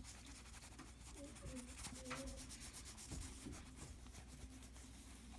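Faint rubbing of a microfiber cloth dampened with alcohol, wiping leftover screen adhesive off the edges of a repaired Apple Watch.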